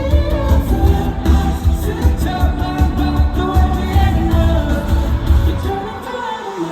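Live pop song over a loud concert sound system: singing over a heavy, pounding bass beat. The bass drops out about six seconds in, leaving lighter music.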